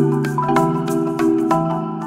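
Background music: a light tune of short, ringing notes over a moving bass line, with a steady beat.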